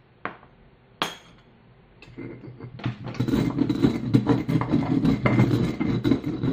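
A metal spoon clinks twice against a stone mortar as peppercorns are tipped in. From about two seconds in, a stone pestle grinds the peppercorns against the volcanic stone mortar: a gritty rubbing full of small cracks as the corns break.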